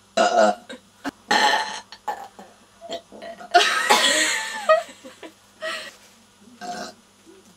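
A string of loud belches from girls who have gulped down a carbonated soft drink (Irn Bru), about six in all, the longest and loudest about halfway through.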